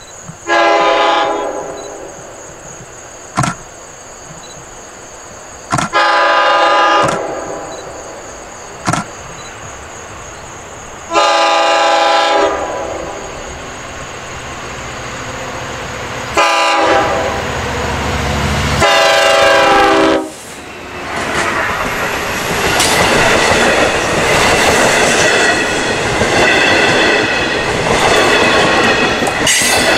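LIRR DM30AC diesel locomotive sounding its horn in five blasts, four long and the fourth one short, the warning for a grade crossing. From about two-thirds in, the train runs past close by with a steady rush and clatter of wheels on the rails.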